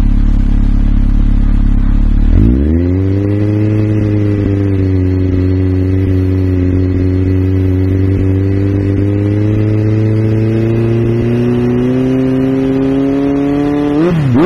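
Honda CB1300's inline-four engine running steadily at low revs, then brought up smoothly to a higher held speed about two seconds in and kept there, creeping slightly higher. Near the end it is blipped up and down in quick revs.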